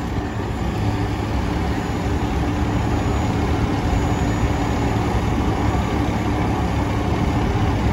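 Fire department aerial ladder truck's diesel engine idling with a steady low rumble.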